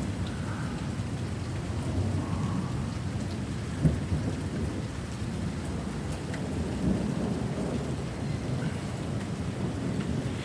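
Thunderstorm: steady rain falling, with low rumbling thunder underneath, and one brief sharp knock about four seconds in.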